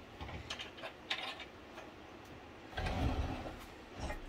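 Steel bench vise being handled: light metallic clicks and ticks from its handle and fittings, then a louder low scrape lasting about a second, about three seconds in, as the vise body turns on its swivel base.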